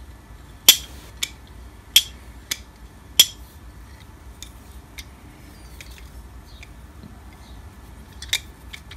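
Machined aluminium brake pedal swung by hand on its pivot, the metal parts knocking together in sharp clicks and clacks: three louder ones in the first few seconds with smaller ticks between, then another clack near the end.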